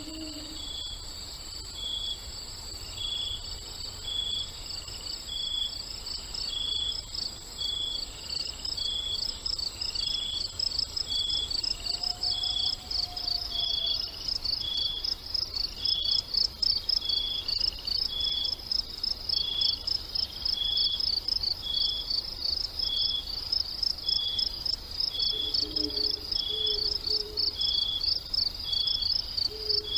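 Crickets chirping steadily in a fast, pulsing trill, with a second chirp repeating about once a second alongside it.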